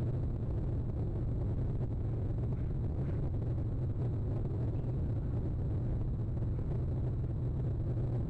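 Steady low rumble with no distinct events or calls.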